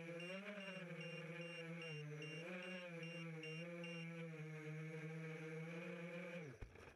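FPV racing quadcopter's Racerstar 2205 2300kv brushless motors whining, the pitch wavering up and down with throttle, heard through the onboard camera, with a high beeping about three times a second that stops about four seconds in. Near the end the motors wind down with a falling pitch and stop as the quad lands.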